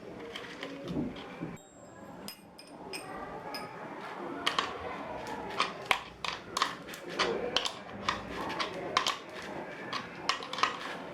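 Irregular sharp clicks and knocks of hand work on small parts at a workbench, coming thick and uneven from about four seconds in, after some quieter rustling handling at the start.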